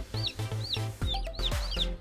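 Newborn chicks peeping: short, high cheeps that rise and then fall, about two a second, over background music.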